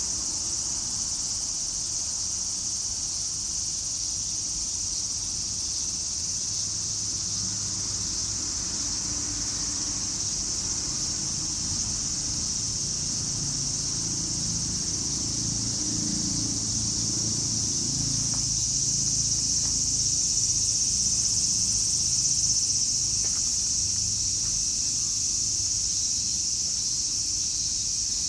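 Steady high-pitched chorus of insects, with a faint low rumble underneath.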